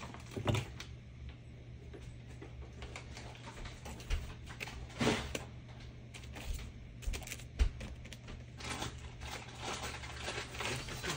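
Light scattered clicks, taps and rustles of a rubber brayer and paper being handled on a craft mat, with a louder rustle about five seconds in, over a faint steady low hum.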